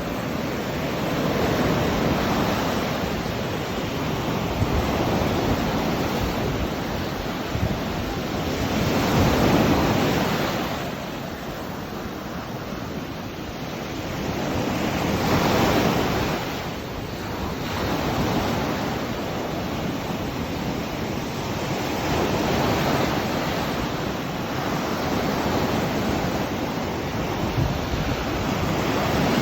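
Sea waves breaking and washing on a beach, the surf swelling and easing every several seconds, with wind buffeting the microphone.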